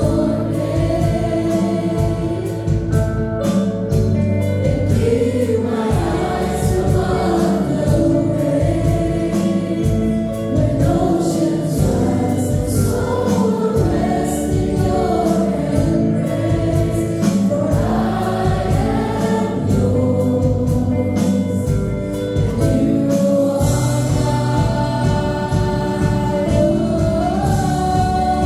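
Women's worship team singing a gospel praise song together into microphones over a PA, with instrumental accompaniment that keeps up a steady low bass.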